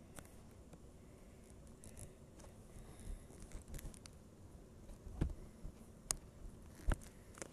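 Faint rustling of a blanket and handling of the recording phone, with a few sharp clicks and knocks in the second half.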